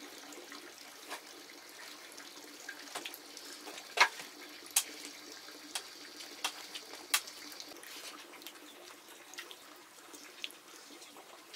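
Water running or sloshing steadily, with scattered sharp clinks and knocks; the loudest knock comes about four seconds in.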